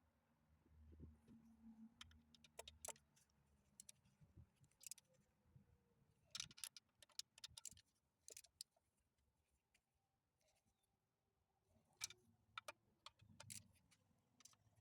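Faint metallic clicks and clinks of a hand wrench and socket tightening the back plate bolts on an M5R1 five-speed transmission case, scattered and irregular, with a quick run of clicks about halfway through.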